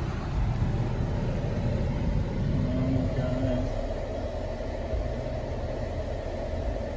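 Low, steady rumble of a car engine idling, heard from inside the car's cabin.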